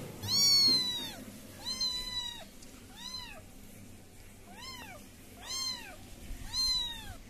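Young kitten meowing six times, high-pitched calls that each rise and then fall in pitch, spaced about a second apart.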